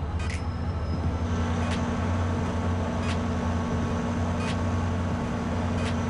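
SunRail diesel-electric locomotive idling at a station, a steady low engine drone. A sharp click sounds about every second and a half.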